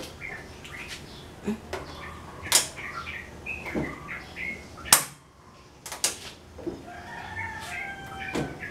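Gas stove's push-and-turn ignition knob being worked, giving several sharp snapping clicks as the igniter sparks, the loudest about five seconds in and another a second later.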